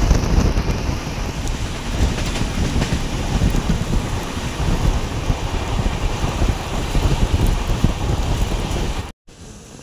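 Passenger train running at speed: a loud, steady rumble of the coaches with wind rushing over the microphone. It cuts off suddenly near the end.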